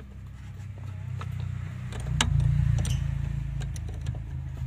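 A car engine idling steadily, growing louder for a second or so about two seconds in. Over it come a few light metallic clicks of a combination wrench working the 12 mm lock nut on the clutch pedal adjuster.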